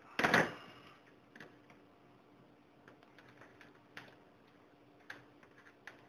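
A clatter as a pair of metal wire strippers is set down on a workbench, followed by scattered light clicks and ticks of small wires and parts being handled, over a faint steady hum.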